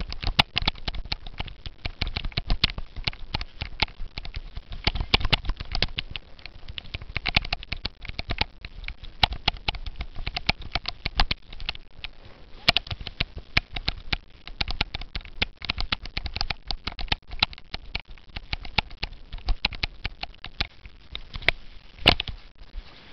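Cyclo-cross bike clattering and rattling over bumpy ground: a fast, irregular run of knocks and clicks, with one louder knock near the end.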